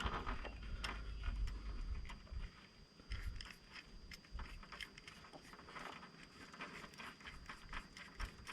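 Light, irregular metal clicks and scrapes from a bolt-type swage crimper and wrench being handled and worked on a rigging-wire ferrule. Wind rumbles on the microphone now and then.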